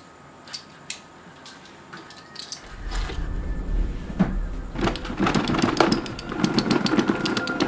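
A metal chain and studded necklace clink as they are handled and put into a wooden drawer, with scattered sharp clicks. About two and a half seconds in a low rumble comes in, and dense clattering builds over the last few seconds.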